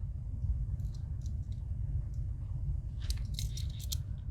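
Swiss Army knife being handled on a tabletop: a few faint clicks about a second in, then a quick run of sharp metallic clicks and scraping near the end as its tools are worked.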